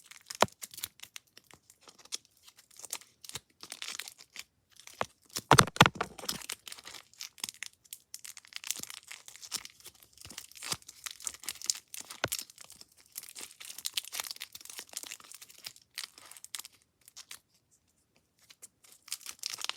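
Close-up crinkling and crumpling made as a crunchy sound effect: dense, irregular crackles, with a louder crunch about six seconds in and a brief pause near the end.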